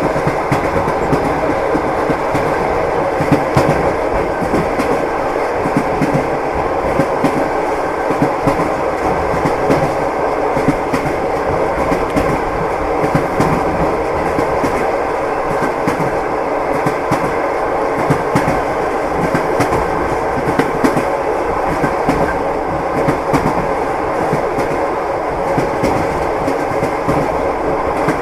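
Train wheels clattering over rail joints as the train runs steadily, a continuous rumbling rattle with frequent clicking knocks.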